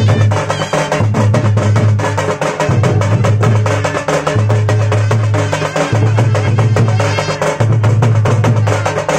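Dhak and nagada, the traditional tribal drums of Jharkhand, played in a fast folk rhythm: dense rapid stick strokes over a deep low tone that comes in long pulses about every second and a half.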